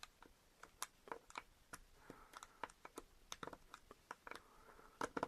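Faint, irregular light clicks and taps of a 9/32 deep socket working a spacer down inside a GM 3/8 fuel line quick-connector, with a slightly louder pair of clicks near the end.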